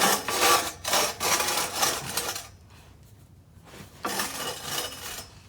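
Scraping and rubbing of a QuickJack lift frame being slid across the floor into place, in two spells: a longer one at the start and a shorter one about four seconds in.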